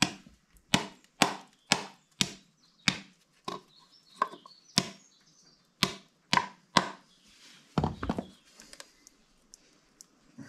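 A metal tool knocking sharply and repeatedly, about two blows a second, on a tractor's diesel fuel filter housing to free a filter that is rusted into it. The blows stop with a short flurry about eight seconds in.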